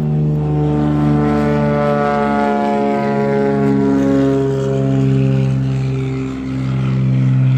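A Cessna 206H's six-cylinder Lycoming IO-540 engine and propeller run at takeoff power as the plane lifts off and climbs past. The steady droning note drops a little in pitch twice, about two and a half seconds in and again near the end.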